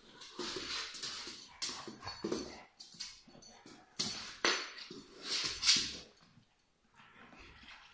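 A dog biting and chewing a rubber chicken squeaky toy. The toy lets out short airy, breathy squeaks in quick bursts, with the loudest around four and five and a half seconds in, and it all stops about six seconds in.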